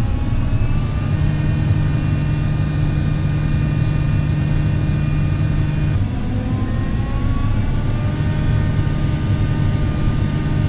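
Tractor engine running steadily while driving, a low even hum with a faint whine above it that slowly climbs in pitch.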